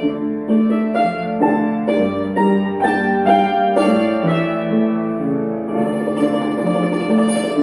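Hammered dulcimer (tsymbaly) struck with mallets, playing a melody of ringing notes, with upright piano chords accompanying it.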